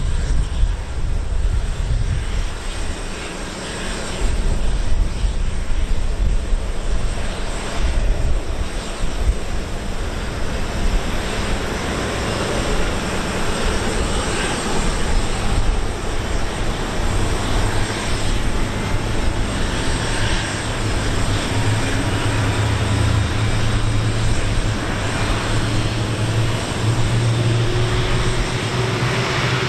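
Jet airliner engine noise: a steady low rumble and hiss, with a whine that slowly rises in pitch through the second half.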